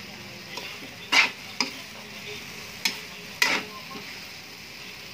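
A spatula stirring and tossing fried noodles and mung bean sprouts in a metal wok over a steady sizzle, with four sharp scrapes against the pan.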